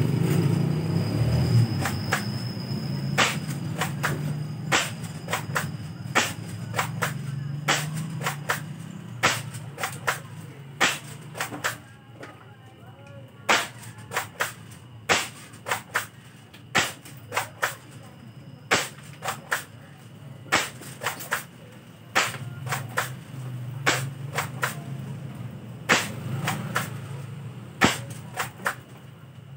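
Spring-powered airsoft pump-action shotgun being racked and fired over and over, a sharp snap or clack about once a second, some in quick pairs. A low rumble sits under the first few seconds and comes back near the end.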